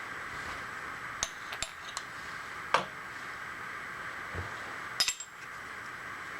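Metal tools and parts clinking as they are handled, with several scattered sharp clinks, the loudest about three seconds in and a quick pair near the end, over a steady shop hum.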